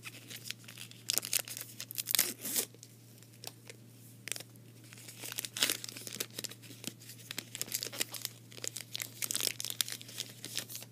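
Plastic foil wrapper of a trading-card pack being torn open and crinkled in the hands, in several bouts of sharp crackling.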